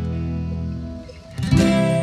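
Background guitar music: a held chord fades away, then a new strummed chord comes in about one and a half seconds in.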